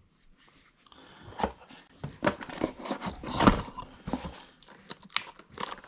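Irregular clicks, knocks and rustles of parts and their packaging being handled, with one louder knock about three and a half seconds in.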